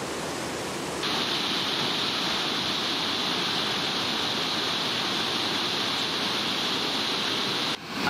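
Flood-swollen mountain creek rushing over boulders in whitewater rapids, a steady dense rush of water; it turns louder and more hissing about a second in. The creek is in spate, risen fast after a short thunderstorm.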